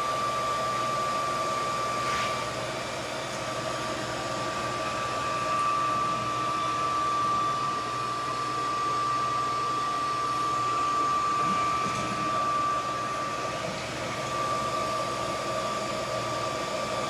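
Roborock F25 ACE wet-dry vacuum running: a steady high motor whine over a rushing airflow, its loudness swelling and easing slightly.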